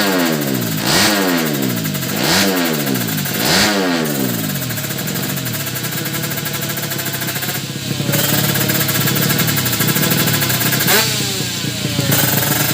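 Drag-bike motorcycle engine revved in quick blips, about one every second and a half, then held at steady high revs with two brief dips in pitch.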